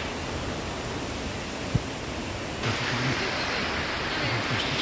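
Mountain river water rushing in a steady, noisy roar, turning brighter and hissier about two and a half seconds in. A single sharp knock comes a little under two seconds in.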